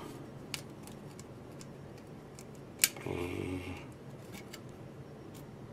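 Light clicks and snaps of a clear plastic light-up Christmas tree star being pried apart by hand: a few scattered clicks, the sharpest just before three seconds in, followed by a brief pitched sound lasting under a second.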